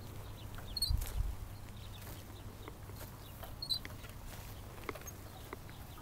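A playground swing squeaking faintly at its hangers as it sways, with a short high squeak roughly every three seconds, in time with the swing. A low rumble of wind on the microphone comes and goes underneath.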